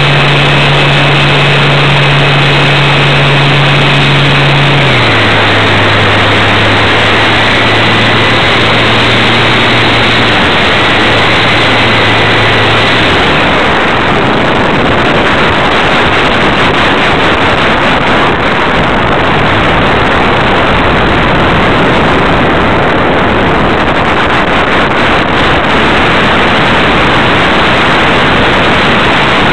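Radio-controlled model plane's motor and propeller running with a steady hum and a high whine, throttled down about five seconds in and cut off about thirteen seconds in. After that only loud wind rush over the onboard camera's microphone as the plane glides with its propeller stopped.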